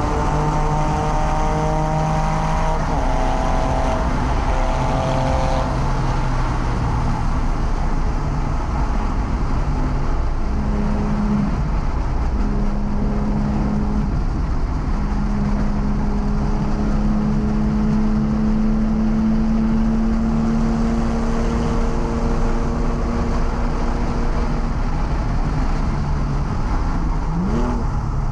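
Porsche 997's flat-six engine running hard at a steady high pitch, heard from inside the car, over heavy wind and tyre noise at over 100 mph. Near the end the engine note swoops up in short blips as the car brakes and downshifts.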